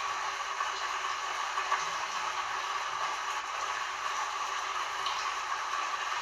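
Heavy rain falling steadily, an even hiss without thunder.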